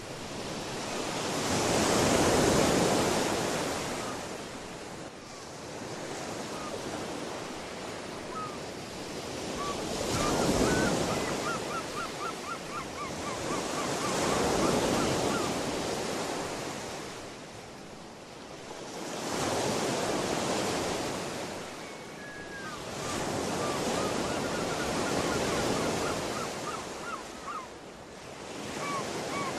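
Ocean surf: waves washing in and drawing back in slow swells every few seconds, with faint chirping and a short rapid trill over them.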